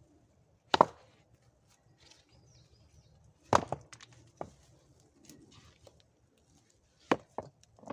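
Rocks knocking against each other as they are lifted and set onto a dry-stone wall: several sharp clacks of stone on stone, the loudest about a second in and again about halfway through, with smaller knocks between.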